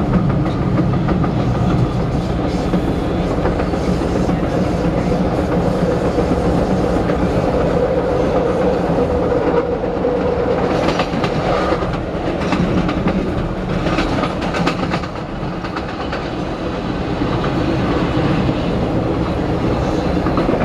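Ride noise heard from inside a 1992 Morrison-Knudsen 3200-series CTA rapid transit car in motion: a steady rumble of steel wheels on rail, with a run of clicks over rail joints from about ten to fifteen seconds in.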